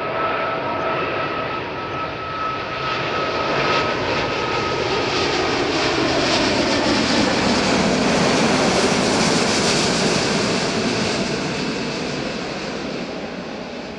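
Airbus A380's four Rolls-Royce Trent 900 turbofans passing low overhead on landing approach: a high fan whine fades out about five seconds in as the jet rush swells, drops in pitch as the aircraft goes over, and peaks about two-thirds through before easing off.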